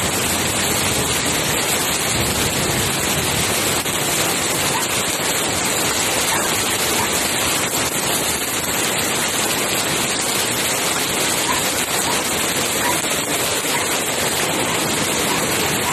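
Heavy rain pouring steadily, splashing onto wet pavement and puddles.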